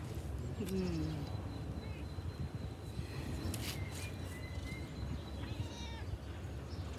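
A cat meowing a few times in short gliding calls.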